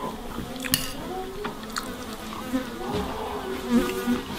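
A flying insect buzzing close by, its pitch wavering up and down as it moves, with a couple of light clicks of cutlery on a plate.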